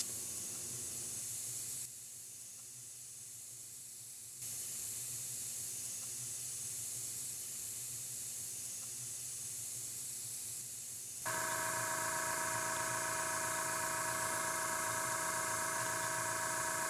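Steady hiss of compressed air through an airbrush as acetone is flushed out of it, its level stepping down and back up in the first few seconds. About 11 seconds in, a steady whine made of several fixed tones joins the hiss.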